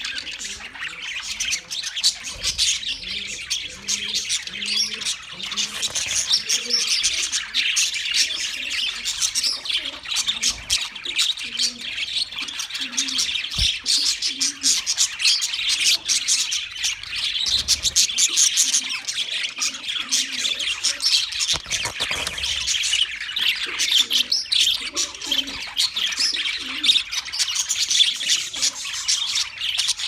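A flock of budgerigars chattering and warbling together: a dense, continuous mass of quick high chirps with no pause.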